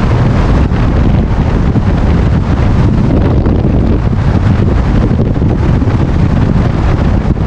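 Loud, steady wind buffeting the microphone, a low rumbling rush with no breaks.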